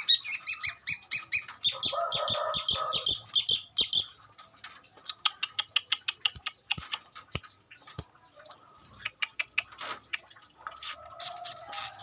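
Long-tailed shrike (cendet) singing a rapid chattering song filled with mimicked calls of other birds. It opens with a fast run of loud sharp notes, with a harsh raspy burst about two seconds in. Quieter rapid ticking follows, and loud fast notes return near the end.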